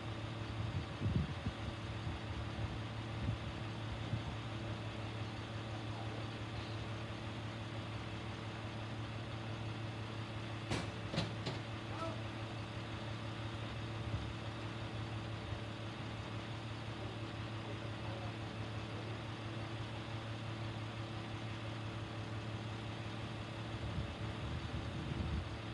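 Utility truck engine idling with a steady hum while the boom is up at the pole. A few sharp clicks about ten seconds in.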